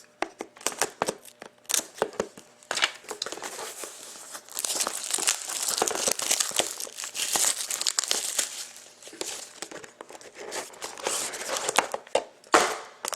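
Plastic shrink-wrap being torn and crumpled off a sealed trading-card box: scattered snaps and clicks at first, then steady crisp crinkling from about four and a half seconds in.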